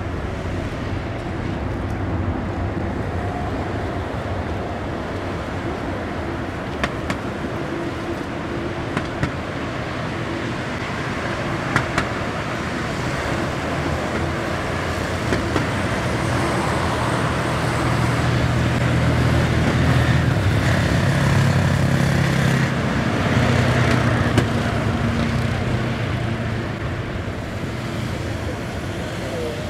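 Boeing 747-200 freighter's four jet engines at takeoff power during the takeoff roll and climb-out: a steady rumble that swells about two-thirds of the way in, then eases off near the end.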